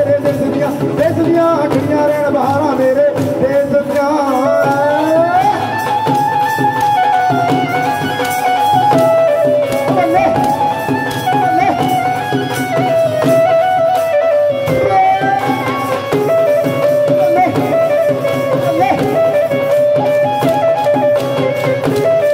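Live Punjabi folk music for bhangra: a keyboard melody with pitch glides over steady dhol drumming.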